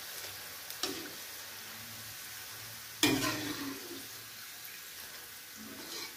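Pakodas deep-frying in hot oil in a steel kadai, a steady sizzle, while a wire spider strainer lifts them out of the oil. A sharp knock about three seconds in stands out above the sizzle, with a couple of lighter clicks before it.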